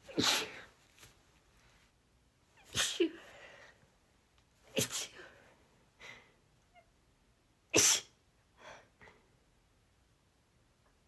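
A woman's breathy sneezes, four of them two to three seconds apart, with softer, shorter sounds in between.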